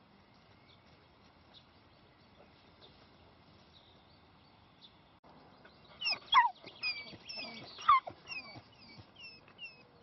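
Irish wolfhound puppy yelping in a run of high, falling squeals, starting about six seconds in, with the loudest two about a second and a half apart and shorter, quieter squeaks after them. Faint birdsong is heard before the yelps.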